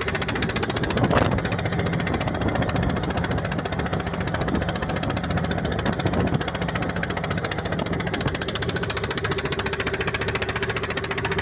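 A wooden fishing boat's engine running steadily at speed, over the rush of water along the hull, with one thump about a second in.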